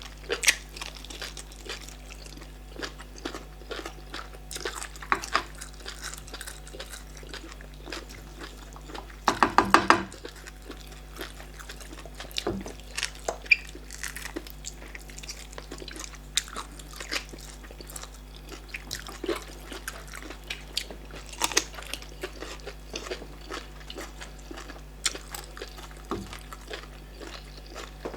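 Close-miked eating: chewing, lip smacks and small crunches from people eating starch fufu with bitter leaf soup, cow leg, fish and snail, scattered irregularly over a faint steady hum. A brief louder burst comes about nine seconds in.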